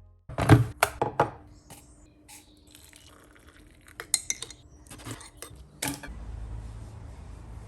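Metal tools and parts clinking and clattering: a quick run of sharp knocks in the first second, then scattered light clinks. About six seconds in a steady low hum starts.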